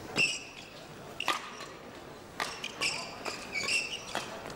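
Badminton rally: sharp cracks of rackets striking the shuttlecock, roughly one a second, mixed with short high-pitched squeaks of court shoes on the playing mat.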